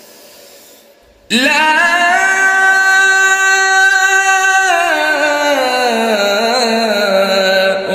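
A male Qur'an reciter chanting one long, drawn-out melodic phrase of tajweed recitation. It starts about a second in, after the echo of the previous phrase dies away, holds a high note, then falls with ornamented wavering before ending near the end.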